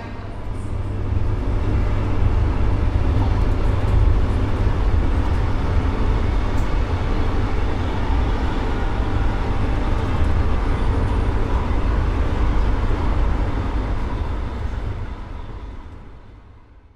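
Steady heavy low rumble of a vehicle running, with an even wash of noise over it, fading out over the last few seconds.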